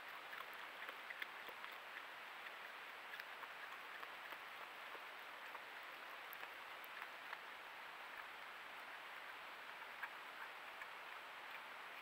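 Faint, irregular clicks and crackles of a Virginia opossum chewing seed in a tray feeder, over a steady hiss from the trail camera's microphone.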